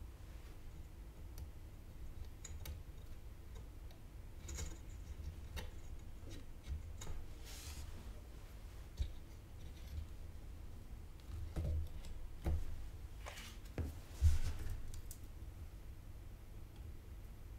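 Faint scattered clicks, taps and short scrapes of hands and small tools handling a motherboard while soldering capacitors, with the loudest scrape about three-quarters of the way through.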